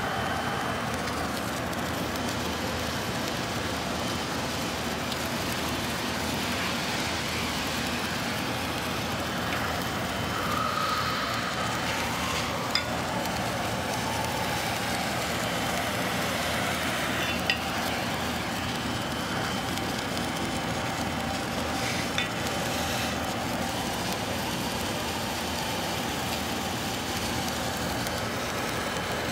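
Submerged arc welding in progress: a steady hiss with three sharp clicks partway through.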